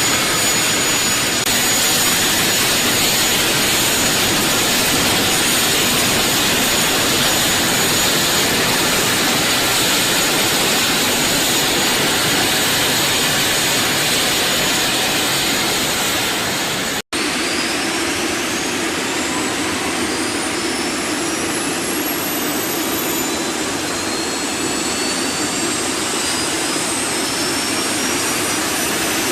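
Gas-turbine engines of a T929 ATAK 2 attack helicopter prototype running on a ground engine test: a steady rushing turbine noise with a high whine. After a cut about 17 s in, several whine tones climb steadily in pitch as the turbines spool up.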